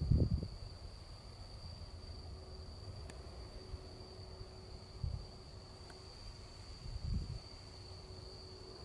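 Crickets trilling in one steady, unbroken high tone. Low rumbles of wind buffeting the microphone come at the start, about five seconds in and about seven seconds in.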